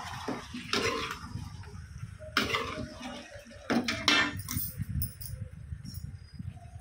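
A steel ladle scraping and knocking against a metal cooking pan as raw chicken pieces are stirred, with a few sharper clanks, the loudest about two and a half seconds in.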